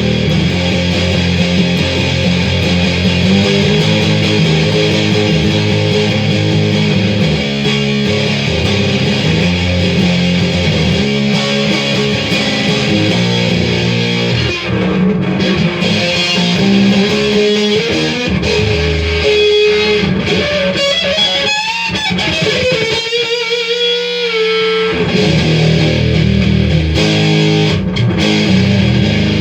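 Electric guitar playing chords and riffs, with a few bent, wavering single notes about three-quarters of the way through.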